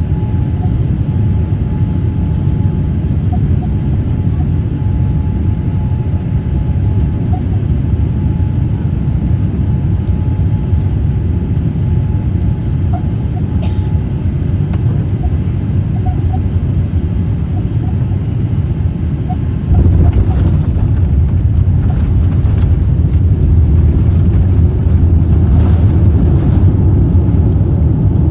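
Cabin noise of a Boeing 787 on landing: a steady low rumble of engines and airflow. About twenty seconds in it suddenly grows louder and stays so, with scattered knocks, as the jet touches down and rolls out on the runway.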